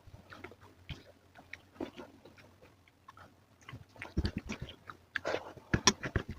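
A person chewing and biting food close to the microphone: irregular mouth clicks and short crunchy bursts, sparse at first and louder and busier from about four seconds in.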